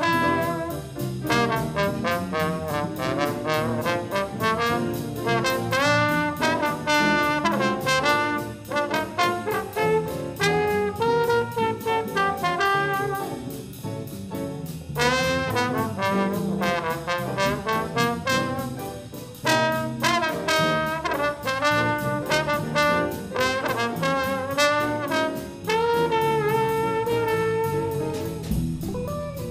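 Trombone soloing in quick jazz runs over a small combo of piano, bass and drums, holding a long note near the end.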